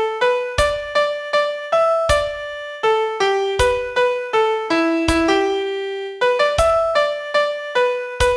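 Piano playing a single-note melody line, each note struck separately at a few notes a second, with a low thump about every one and a half seconds marking the beat.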